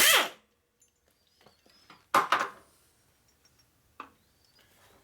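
Metal hand tools and engine parts clanking on a workbench: a ringing metallic clatter at the start, a second sharp clank about two seconds in, and a light click near the end.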